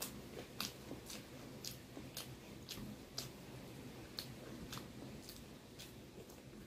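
Faint, wet mouth clicks of a person chewing food, coming evenly about two a second.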